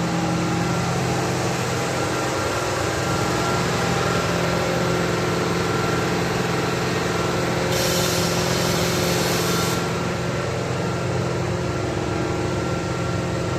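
Steady hum of workshop machinery, with a burst of hissing air lasting about two seconds around eight seconds in.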